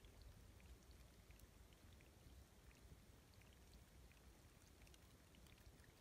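Faint babbling of a small spring-fed brook, scattered little plinks of trickling water over a low, steady rumble.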